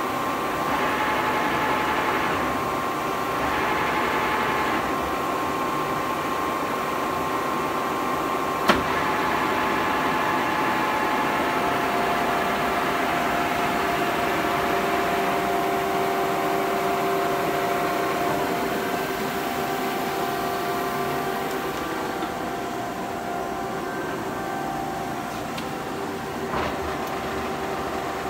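Webster & Bennett vertical turret lathe running under power, its 48-inch chuck table turning, with a steady hum and gear whine from the drive. A single sharp click comes about nine seconds in, and the whine changes pitch about twelve seconds in.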